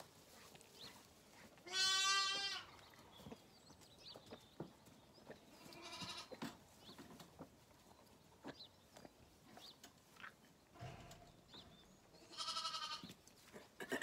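Zwartbles lambs bleating a few times, each bleat wavering in pitch, the loudest about two seconds in and others around six seconds and near the end, with light clicks and rustling of straw between them.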